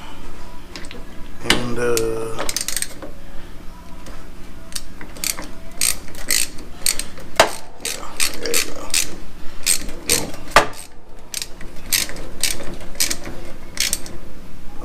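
Ratchet wrench clicking in runs of sharp strokes, about three a second, while tightening a battery terminal clamp to reconnect the battery.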